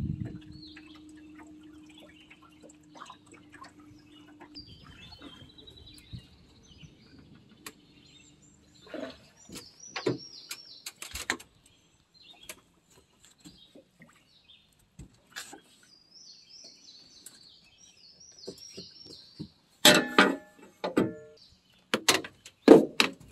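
Bow-mounted electric trolling motor humming steadily, then stopping about four seconds in; small birds chirping throughout. Near the end come several loud knocks and clatter in the aluminum boat.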